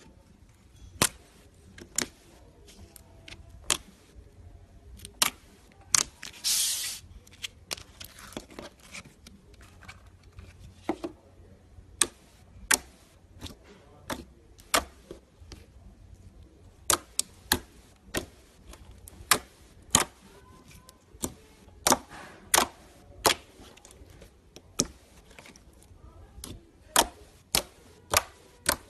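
Slime being handled, making sharp irregular clicks and pops about once or twice a second, with a short hiss a few seconds in.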